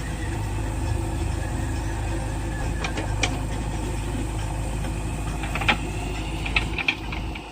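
Diesel engine of a JCB backhoe loader running steadily, with a few short sharp knocks over it.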